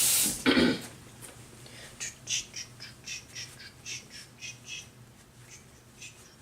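Running kitchen tap water cuts off just after the start, followed by one short loud squeak. Then comes a string of short, soft rubbing clicks, about three a second, from hands being worked together with hand sanitizer.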